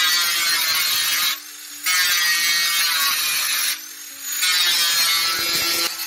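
Angle grinder with a metal cutting disc cutting through the thin, rusty sheet-steel body of an old wood stove. It makes three cuts, each lasting a second or two, broken by two short pauses in which only the grinder's motor hum is left.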